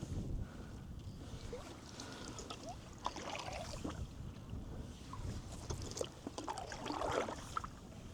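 Canoe paddle strokes: the blade dipping and water splashing and dripping off it in small irregular flecks, over a low steady rumble.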